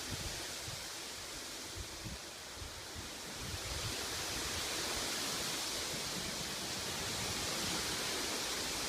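Wind blowing through trees, a steady rushing hiss of leaves that swells a little about four seconds in.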